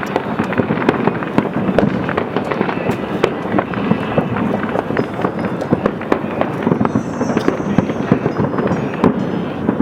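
Fireworks going off in a dense, continuous barrage: many sharp bangs and crackles overlapping, several a second, with no let-up.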